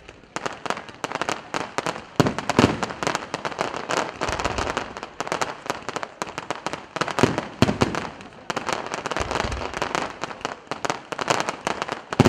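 Aerial fireworks: a dense, rapid crackle of bursting stars, punctuated every few seconds by heavier booms of shells bursting.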